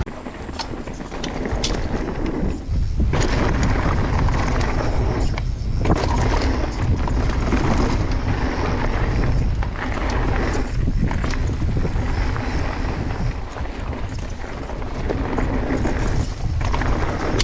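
Mountain bike ridden down a rocky trail: a steady rumble of wind on the microphone and tyres rolling over rock, broken by frequent clattering knocks from the bike.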